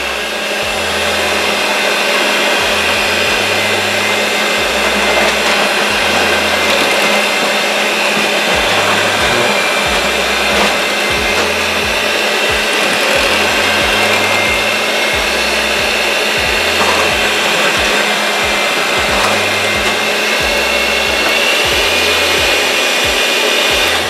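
Electric mixer with twin beaters running steadily, its motor giving a constant whine as the beaters whip raw eggs in a glass measuring cup until yolks and whites are evenly blended.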